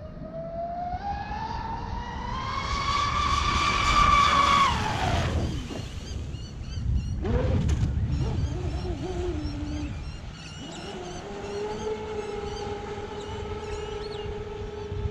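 The brushless electric motor of a Mystic 138 RC speed boat running on a 7S battery (ZTW controller, TP motor) whines at full throttle on a speed run. The pitch climbs to its loudest about four seconds in, then drops sharply. After a brief rush of noise around seven seconds in, the whine settles to a steady lower pitch.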